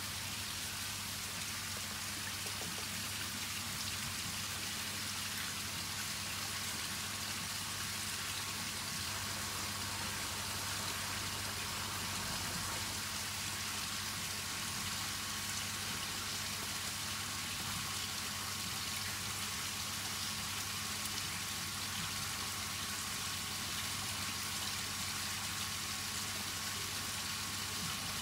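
Steady pattering and trickling of water, over a low steady hum.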